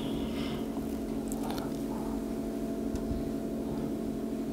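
Quiet room tone: a steady low hum with a few faint clicks, and no speech.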